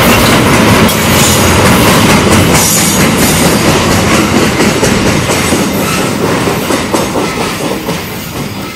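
Freight train of flatcars loaded with steel coils rolling past, the wagons' wheels rattling and clacking over the rails. It is loud, then fades over the last few seconds as the end of the train goes by.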